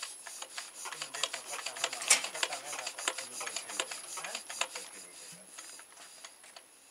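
Irregular clicks and scrapes with one sharp knock about two seconds in, as the flat drive belt comes off the old diesel engine's flywheel pulley and falls to the ground.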